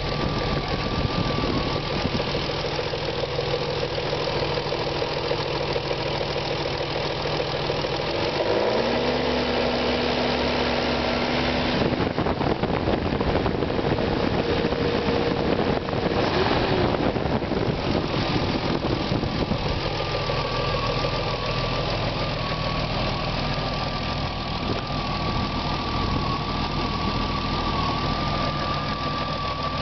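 BMW E36 M3's S50B30 3.0-litre straight-six idling, with its note changing for a while midway before settling back. It carries the abnormal engine noise that the owner is unsure whether to put down to the VANOS unit or the timing chain.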